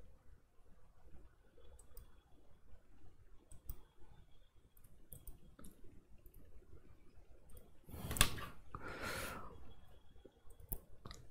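Scattered faint clicks in a quiet small room, with one sharp louder knock about eight seconds in followed by about a second of noisy rush.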